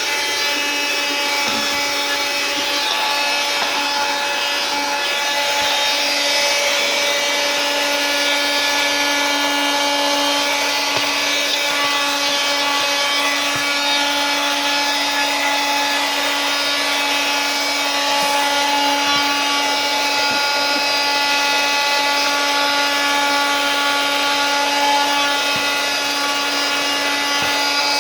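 Handheld 12 V car vacuum cleaner running steadily, its small motor giving a constant whine over the rush of air, with a few faint ticks now and then.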